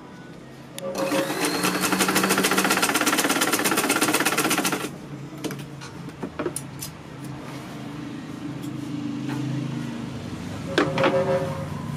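Sewing machine stitching a fast seam for about four seconds, needle strokes in quick succession, then stopping. A quieter steady hum follows, with a few clicks near the end.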